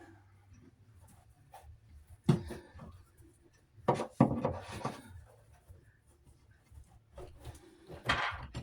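A few knocks and rattles of tools and plumbing fittings being handled while supply lines are connected to the water valves under a bathroom sink, over a faint low hum: one knock about two seconds in, a cluster about four seconds in, another near the end.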